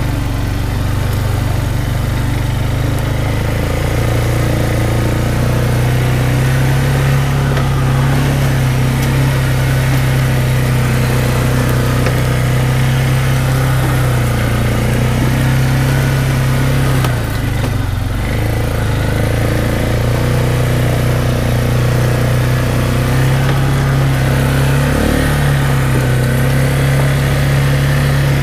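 ATV engine running steadily while the machine is ridden, its note dipping briefly a little past halfway before picking up again.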